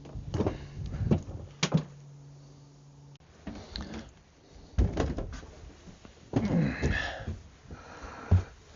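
Scattered knocks and thumps of wood being moved and stepped on around a boat's boards and fittings, with a steady low hum that stops suddenly about three seconds in.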